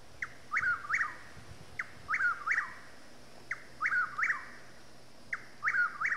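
A songbird repeating the same short three-note call four times, about every two seconds, over a faint steady hiss.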